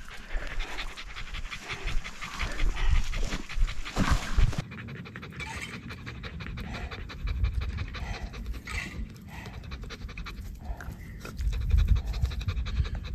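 Shiba Inu panting hard and steadily, a dog tired out from a mountain hike.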